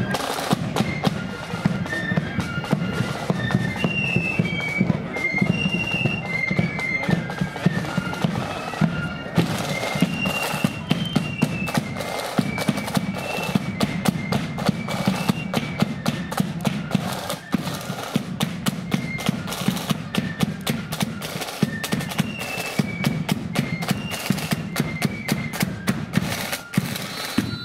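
Blood-and-thunder marching flute band playing a tune on flutes over rapid side-drum strokes and bass drum beats.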